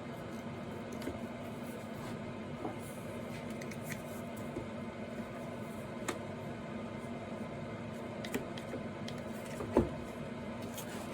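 Scattered light clicks and knocks of a board and clamp being handled and fitted on a table saw, with one louder knock about ten seconds in, over a steady low hum.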